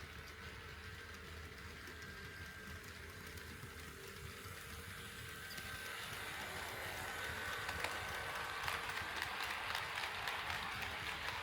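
HO scale model train running on KATO Unitrack: a low rumble and faint motor whine with the click of wheels over rail joints. It grows louder from about halfway through as the train comes closer.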